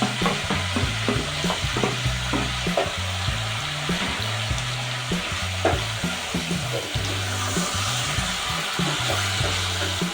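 Beef, onions and tomato sizzling in a frying pan while being stirred, the spoon clicking and scraping against the pan. A background music bass line runs underneath.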